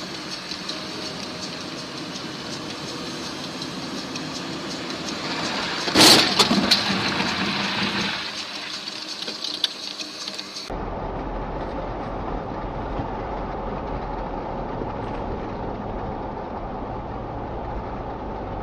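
Car crash: steady road noise from a moving car, then one loud impact about six seconds in, followed by about two seconds of crackling, breaking debris. A little past halfway the sound cuts to a different car's steady low engine and road drone.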